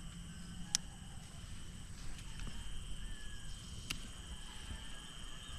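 Insects chirring steadily with a high, unbroken tone over a low rumble, and two sharp clicks, one just under a second in and another about four seconds in.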